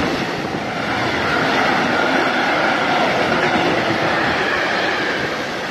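Freight train of covered sliding-wall wagons and tank wagons passing close by: a steady, continuous rolling rumble of steel wheels on the rails.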